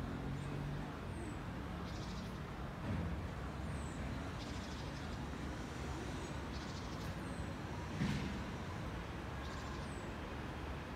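Steady outdoor background rumble like distant traffic, with faint, short, high bird chirps and trills recurring every couple of seconds. A brief knock stands out about eight seconds in.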